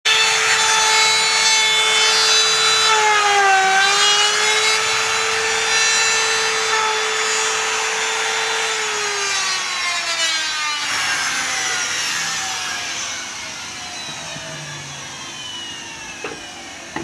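Electric wood router running at full speed with a high whine, its pitch dipping briefly about three and a half seconds in. After about nine seconds it winds down, the whine falling steadily in pitch as it slows.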